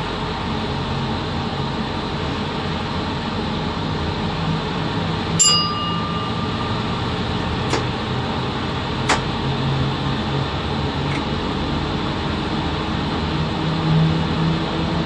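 Steady droning noise inside the cab of a VL80 electric locomotive, with a sharp metallic clink that rings briefly about five seconds in and two lighter clicks a few seconds later.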